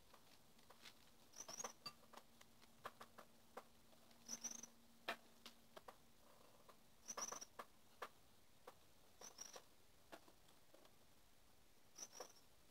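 Faint sticky clicks and crackles of moist absorbent gel being handled and dropped onto pink slime in a ceramic bowl, with a short high squeak every two to three seconds.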